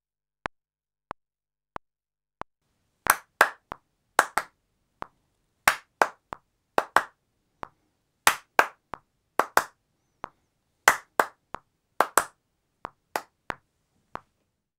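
Hand claps into a desk microphone, clapping a four-bar kick drum pattern in time with a quiet DAW metronome click at 92 bpm. The metronome ticks alone for about three seconds as a count-in, then the claps come in uneven groups, some much louder than others, with the softer metronome ticks between them until near the end.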